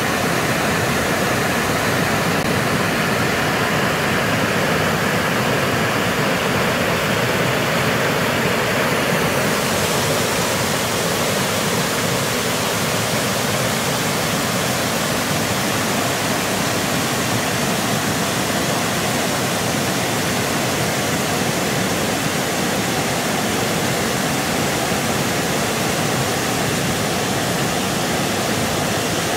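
Water pouring over a low river weir, a steady rush of falling and churning water that grows a little hissier about nine seconds in.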